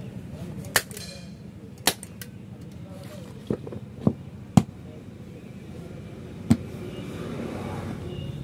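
Staple gun snapping six times at uneven intervals, fastening the cover onto a motorcycle seat, over a low steady hum.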